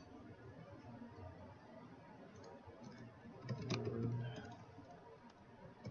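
Typing on a computer keyboard: light, irregular key clicks. A brief, louder low sound comes about three and a half seconds in.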